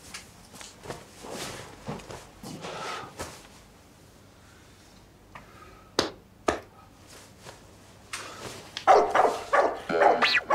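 Soft scattered rustling and two sharp clicks, then from about nine seconds in a dog barks over and over in a quick run of loud barks.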